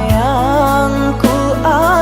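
Background music: a song with a gliding melody, likely sung, over steady low bass notes.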